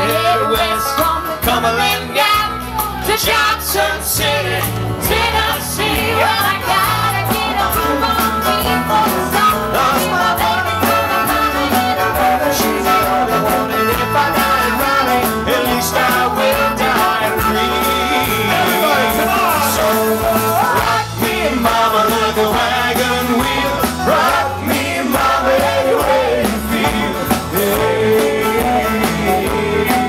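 Live band playing a country-rock song, with acoustic guitars, cello, electric bass and keyboard, and singing in places.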